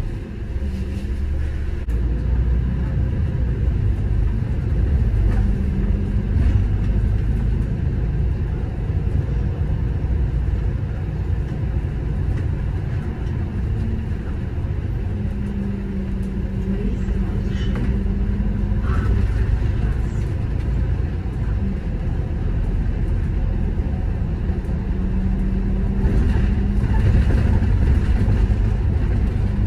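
City bus driving: a steady low engine and road rumble, with a low engine hum that comes and goes in stretches.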